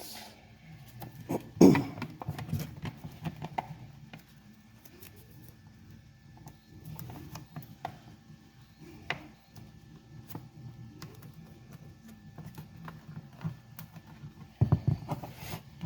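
Hands working 3D-printed PLA helmet pieces and masking tape: scattered light clicks, taps and rustles, with a louder knock about two seconds in and a burst of handling near the end, over a faint steady low hum.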